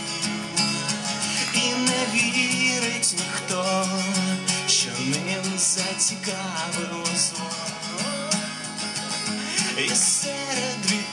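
Man singing to his own strummed acoustic guitar, live through a vocal microphone.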